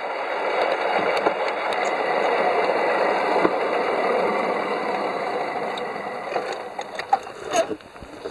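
Double-headed 5-inch gauge garden-railway locomotives running along the track: a steady rattling rumble of wheels on the rails with small clicks. It dies down over the last two seconds, with a few sharp knocks near the end.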